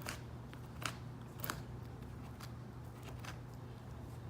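Body filler being spread over a fiberglass repair: faint short scrapes and clicks, about one a second, over a low steady hum.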